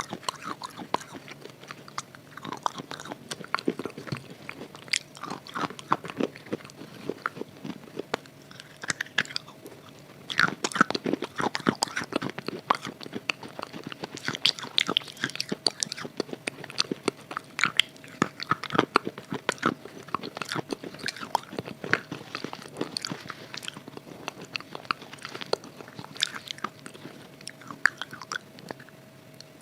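Close-up crunching as a red khadi (chalk-clay) bar coated in red khadi paste is bitten and chewed: dense, irregular crisp cracks and crunches, getting louder and busier about a third of the way in.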